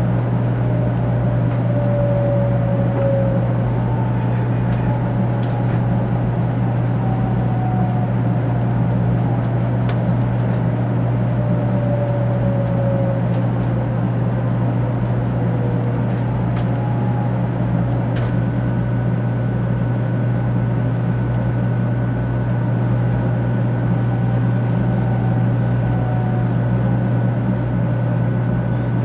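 Cabin noise inside a 500 series Shinkansen pulling into a station: a steady low hum and rumble with several slowly falling whines as the train slows. A steady high tone joins about 18 seconds in.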